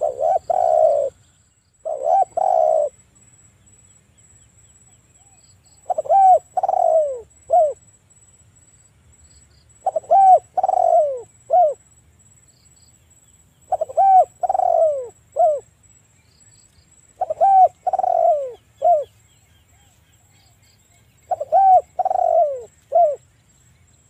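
Spotted dove cooing: repeated phrases of two to four deep, downslurred coos, a new phrase roughly every four seconds.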